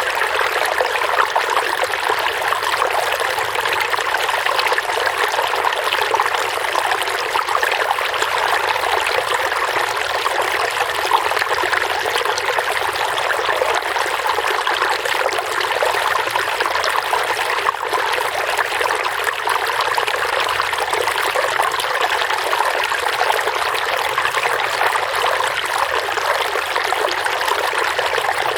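Running water trickling and splashing, a steady flow of water over stones or into a pool, even and unchanging throughout.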